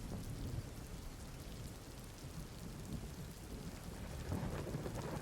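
Steady rain with subtle low thunder rumbling underneath, the rumble swelling slightly about four seconds in.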